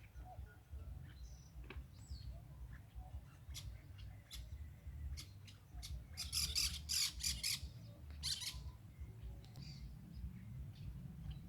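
Faint, harsh bird calls: scattered sharp clicks that build to a rapid rattling burst about six seconds in and a shorter one a second later, over a steady low rumble.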